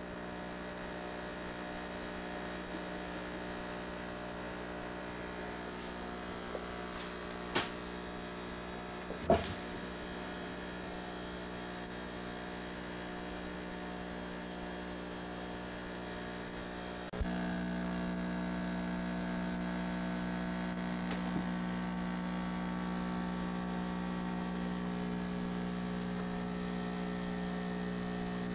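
Steady electrical hum made of several even tones, with two short clicks around the eighth and ninth seconds. About seventeen seconds in there is a click and the hum becomes louder.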